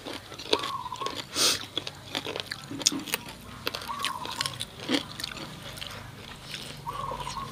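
Close-miked eating: chewing and crunching with mouth clicks, the louder crunches about a second and a half in and near five seconds. A faint short wavering tone sounds three times in the background, about three seconds apart.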